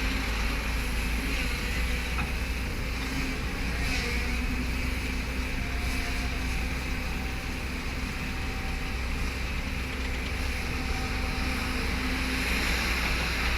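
Excavator's diesel engine running steadily with a constant low hum.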